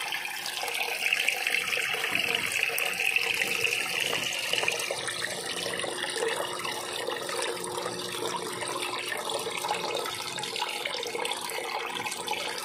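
Water-nutrient solution splashing steadily from the NFT channel's return pipe, through a mesh filter, onto the screen over the reservoir.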